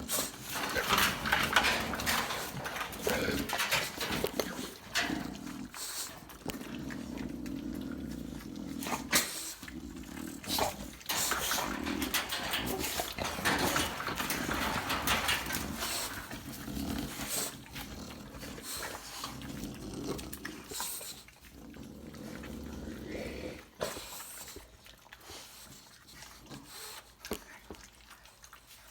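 American bully puppies eating wet puppy mush together: wet smacking and lapping with grunts and small growls, tailing off near the end.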